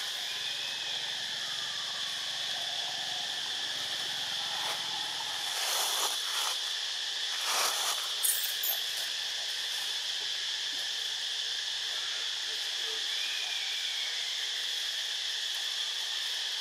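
A steady, high-pitched chorus of insects, with a few brief scratchy noises between about six and nine seconds in.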